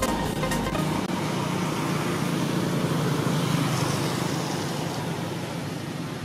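Steady outdoor background noise with an even, low motor-like hum, easing slightly toward the end.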